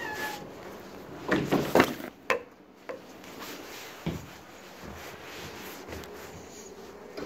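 Door of a railway carriage being handled and opened: a cluster of clattering knocks about a second and a half in, a sharp bang just after two seconds, then a few lighter knocks.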